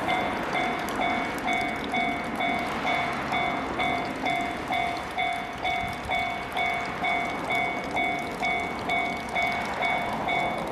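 Japanese railway level-crossing warning bell ringing: an electronic clang repeating evenly about one and a half times a second, over a steady background rumble.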